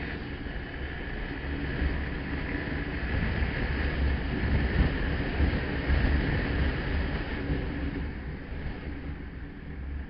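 Motorcycle riding on the road, wind rushing and buffeting the microphone over the engine's running. It grows louder toward the middle and eases off near the end.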